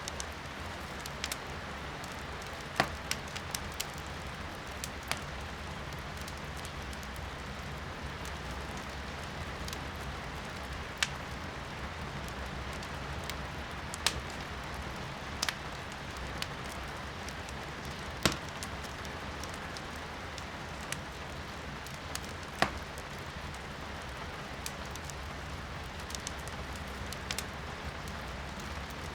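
Firewood crackling in a fireplace, with sharp pops every second or two, over a steady hiss of rain heard from indoors.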